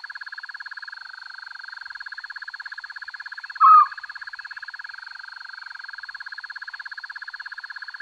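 Steady, rapidly pulsing chorus of calling animals, about a dozen pulses a second, with a thin steady high tone above it. About three and a half seconds in, one short, loud call rises and falls.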